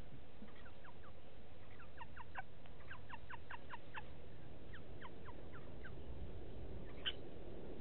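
A small bird calling: a quick series of short, falling chirps, followed about seven seconds in by a single louder call, over steady low background noise.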